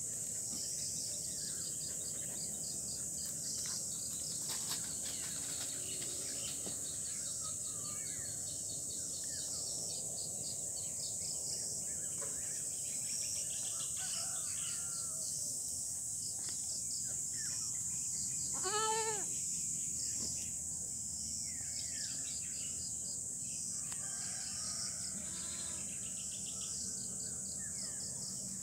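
Steady high-pitched insect buzz with scattered bird chirps. About two-thirds of the way through comes a single wavering goat bleat, the loudest sound.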